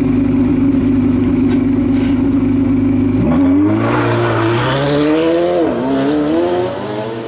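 Hill-climb race car engine holding steady revs, then accelerating hard from about three seconds in, its pitch climbing with a brief dip near six seconds.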